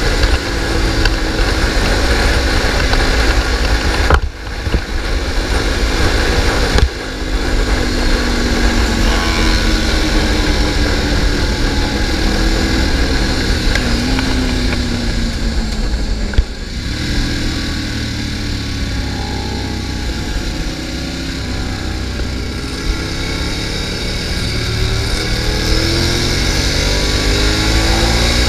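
Sport motorcycle ridden hard on a race track, heard onboard through heavy wind noise: the engine revs rise and fall through the gears. There are brief sharp drops where the throttle closes, about four, seven and sixteen seconds in.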